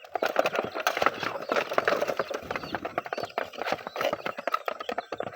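Chickens pecking at scattered feed: dense, rapid, irregular tapping and clicking.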